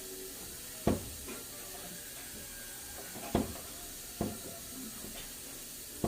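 Four sharp knocks of hard items being set down, the loudest about a second in, over a steady hiss.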